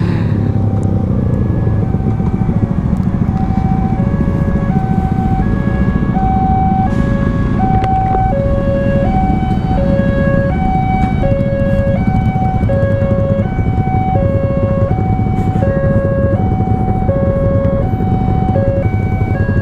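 Two-tone electronic warning signal alternating steadily between a high and a low note, about two notes a second, growing clearer about halfway through. It sounds over the steady engine and wind noise of a Suzuki GSX-S150 motorcycle on the move.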